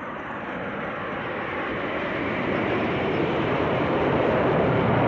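Jet airliner flying over: a steady rushing jet roar that grows steadily louder.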